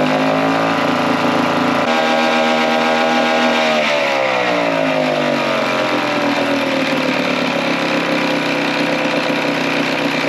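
50-year-old Mercury two-stroke outboard motor running. The revs climb over the first two seconds, hold briefly, then drop back toward a steady lower speed from about four seconds in.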